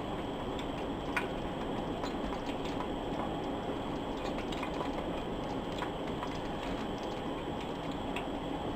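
Oreo churros deep-frying in hot oil: a steady sizzle with scattered small pops and crackles.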